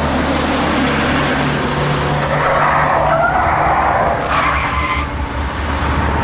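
Vehicle sound effect of tyres skidding and an engine as a vehicle speeds away: a rushing screech that swells through the middle, with a short burst near the end, over a steady low hum.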